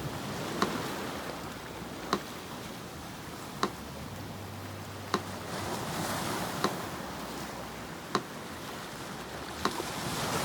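Sea surf washing and swelling in waves, with a metronome ticking evenly over it: one sharp click every second and a half, seven in all.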